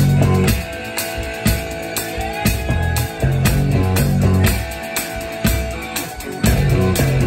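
Live rock band playing: electric guitar over drums, with low bass notes and a drum hit about twice a second. Heard from right beside the drum kit, so the cymbals and drums sit close and loud.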